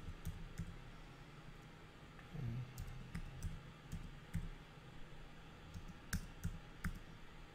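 Computer keyboard being typed on slowly: faint, irregular single key clicks, with a few sharper ones about three seconds in and again past six seconds.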